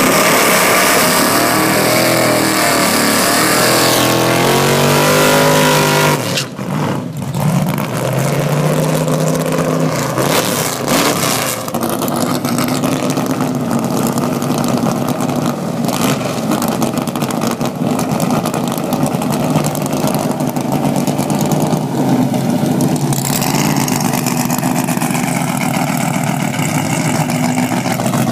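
Drag car doing a burnout: its engine is held at high revs with the rear tyres spinning and screeching, and this cuts off about six seconds in. The car then idles loudly with an uneven rumble at the start line.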